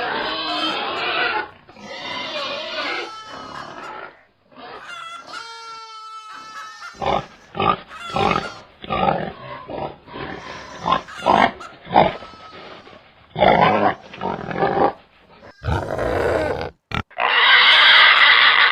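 Pigs grunting in short repeated bursts, with a longer pitched call about five seconds in. A louder, rougher cry comes near the end.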